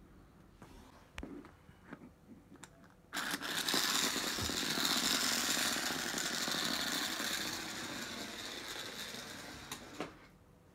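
Small motor of a plush toy mouse whirring as the toy scoots across a wooden floor. It starts suddenly about three seconds in and slowly fades toward the end, with a few light clicks before it.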